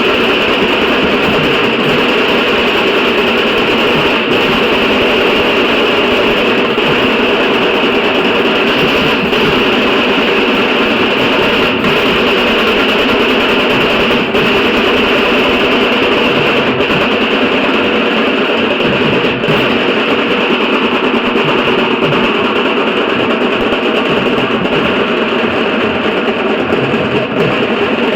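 Dhol-tasha drum ensemble playing loudly and without a break, the drums blending into one continuous, dense wall of sound.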